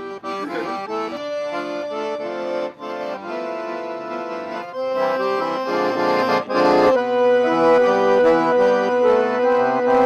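Piano accordion played, its reeds sounding held chords that change one after another. A little past halfway it briefly drops, then comes back louder and fuller, with one long held note under the chords.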